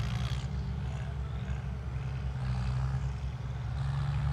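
Several tractor diesel engines running together under hard acceleration in a drag race, a steady low drone, with a short hiss in the first half second.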